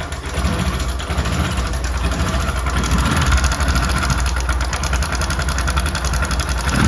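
Bajaj Discover motorcycle's single-cylinder engine running with the throttle opened, carrying a loud, fast metallic rattle that the mechanic identifies as timing-chain noise from a slack chain or worn tensioner. It gets a little louder about three seconds in.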